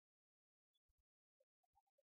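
Near silence, with a few very faint clicks.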